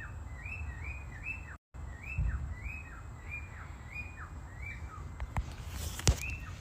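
A repeated chirping call, about two notes a second, each note rising sharply and then dropping in pitch, from an unseen animal singing in the dark. A couple of sharp clicks sound near the end.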